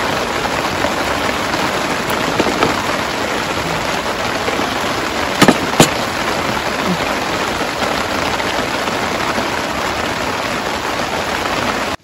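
Rain falling steadily, with two sharp clicks a little before halfway through.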